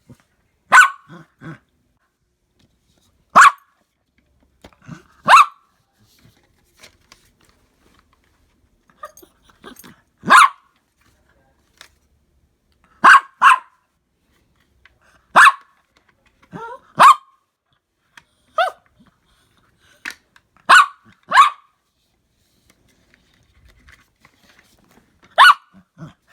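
A dog barking in single sharp barks and quick pairs, about a dozen over the stretch, spaced a second to several seconds apart.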